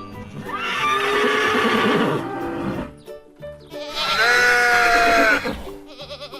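Children's background music with a steady beat, over which two farm-animal calls sound, each lasting about two seconds.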